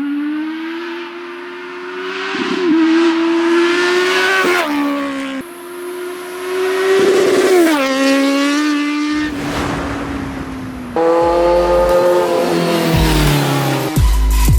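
Kawasaki Z900's inline-four engine through a loud Racefit aftermarket exhaust, accelerating hard. Its pitch climbs and drops several times, in a few separate cut-together takes.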